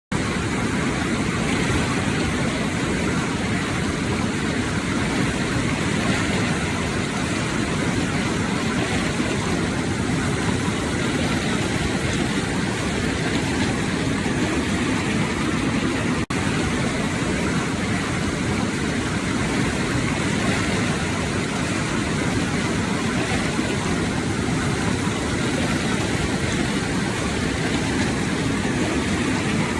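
Steady rushing noise of fast-flowing floodwater, even and unbroken, with a brief cut about sixteen seconds in.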